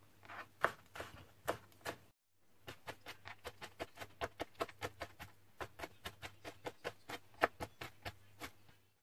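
Chef's knife dicing kohlrabi on a plastic cutting board. There are a few separate chops, a short break about two seconds in, then a fast, even run of knife taps at about five a second.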